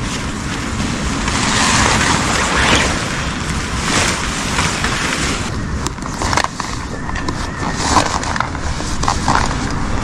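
Close handling noise: clothing and gear rustling and brushing against the microphone, with scattered knocks and clicks in the second half.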